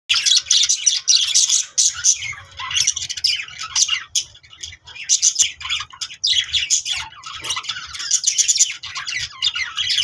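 Budgerigars chirping in a fast, continuous high-pitched chatter, with a short lull about four seconds in.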